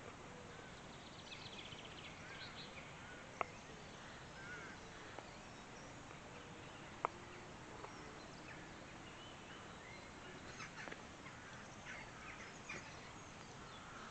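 Faint outdoor ambience with scattered bird calls in the background, and two sharp single clicks about three and a half seconds apart.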